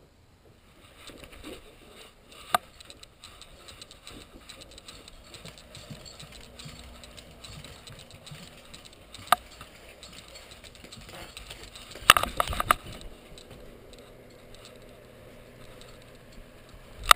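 Handling noise from a camera being carried and positioned: faint rustling, broken by single sharp clicks twice and a close cluster of louder knocks about twelve seconds in.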